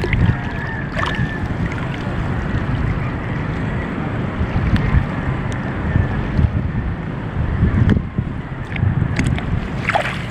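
Wind buffeting the microphone over open sea water, with water lapping and sloshing close by and a few short knocks.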